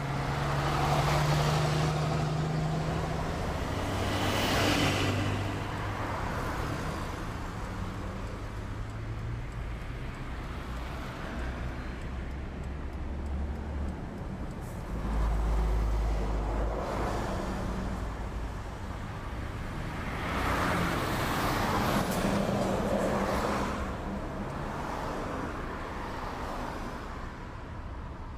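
Scania fire engine's diesel engine running as the appliance drives slowly and reverses towards its bay, its sound swelling and easing several times.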